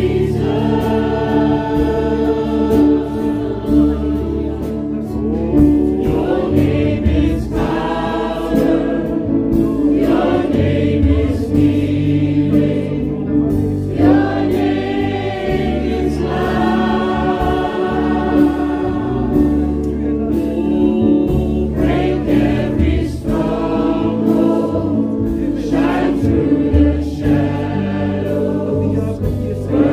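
Christian worship song: a choir singing over a bass line, a held low note and light percussion.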